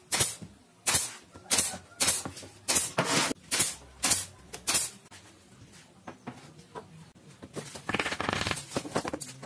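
Pneumatic nail gun firing into plywood, about ten sharp shots at roughly two a second over the first five seconds. A short rough scraping sound follows near the end.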